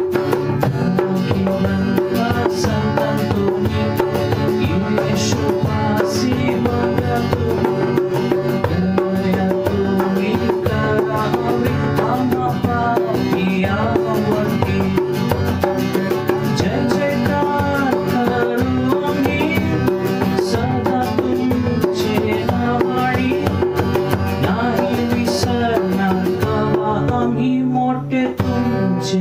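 Marathi devotional hymn to St Anthony with tabla drumming keeping a steady beat under a melody line.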